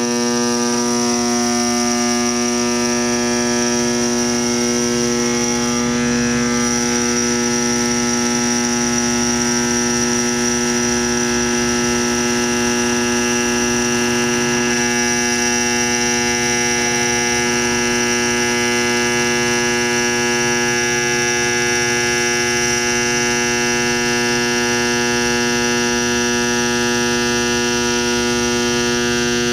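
Induction bearing heater humming steadily, a loud electrical buzz of several fixed tones, as it heats a bearing to about 250 degrees so it will slide onto its shaft.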